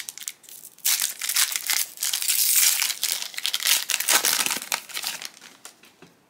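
Foil trading-card booster pack wrapper crinkling and tearing as it is ripped open by hand. The crackling is loudest in the middle and dies away about five seconds in.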